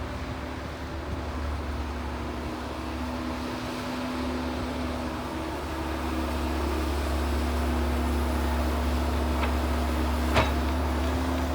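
Excavator's diesel engine running steadily with a low hum, getting a little louder about halfway through. A single sharp knock sounds near the end.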